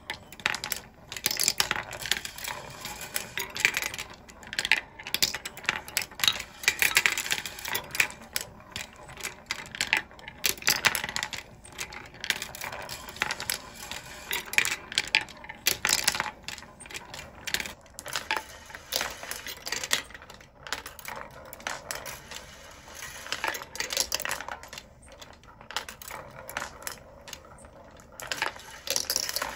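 17 mm glass marbles running through a wooden marble machine: a continuous, irregular clatter of clicks and knocks as they roll and drop along bent steel-wire tracks and circle a wooden bowl.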